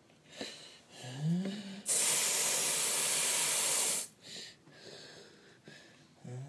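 Aerosol spray can hissing in one continuous blast of about two seconds that starts and stops abruptly, spraying mist. Just before it, a voice hums a short rising note.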